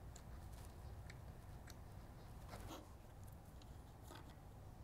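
Near silence, broken by a few faint scattered clicks and taps from hands handling a wooden panel and placing a small screw into its hole.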